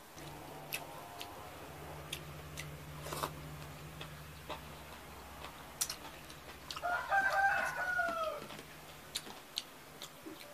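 Close mouth sounds of eating with the fingers: chewing and sharp wet clicks and smacks, over a low steady hum that stops about halfway. About seven seconds in, a loud drawn-out pitched call lasts about a second and a half and falls away at its end.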